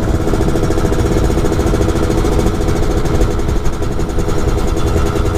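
Yamaha F1ZR's single-cylinder two-stroke engine running at a steady cruise while the bike is ridden, with wind rumble on the microphone.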